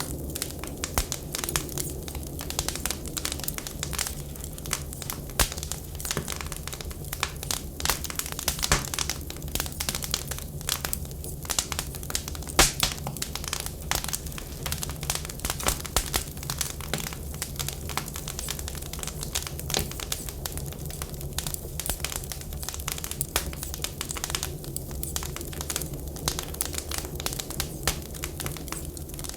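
Wood fire crackling in a fireplace: dense, irregular pops and snaps over a steady low rumble.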